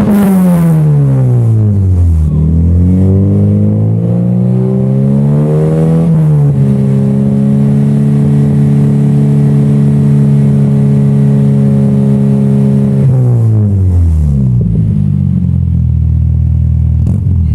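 Volkswagen Jetta's engine and exhaust being revved: the revs fall away at the start, climb slowly, are held steady for several seconds, then drop back to a low idle near the end.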